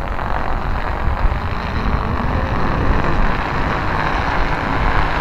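Four Firefox stunt kites, 3.3 m wingspan, roaring as they fly together: a loud, steady rushing of sails and lines cutting through the wind.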